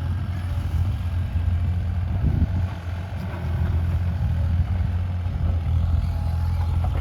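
Bobcat E37 compact excavator's diesel engine running with a steady low hum, dipping briefly about three seconds in.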